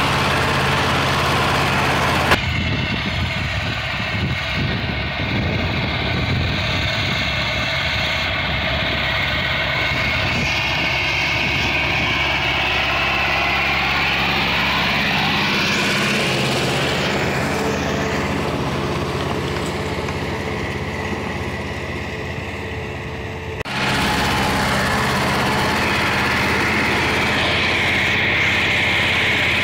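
Ursus C-360 4x4 turbo tractor's four-cylinder diesel engine running steadily while pulling a plough, heard from the cab and from beside the tractor. The sound changes abruptly about two seconds in and again near the end, where the clips are cut, and the pitch sweeps up and down around the middle.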